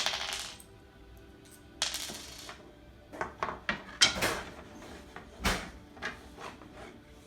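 Wooden easel parts and metal wing-nut hardware being handled: a sharp knock at the start and another about two seconds in, then a run of clicks and clinks.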